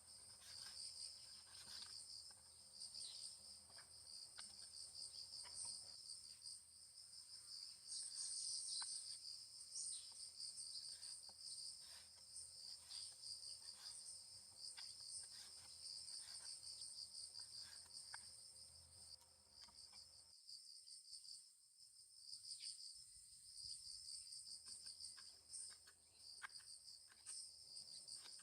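Steady, high chorus of crickets trilling, with faint scattered small clicks now and then.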